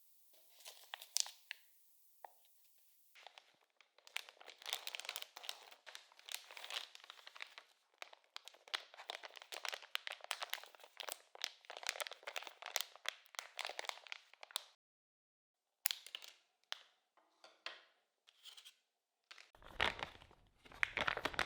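Crinkling and tearing of packaging being handled: dense crackling for about ten seconds, then a few scattered crinkles.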